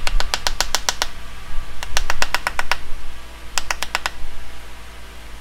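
Quick, light taps of a hard tool against wood in three rapid runs of about eight strikes a second: a new wooden leg being tapped down into its hole in a stump table.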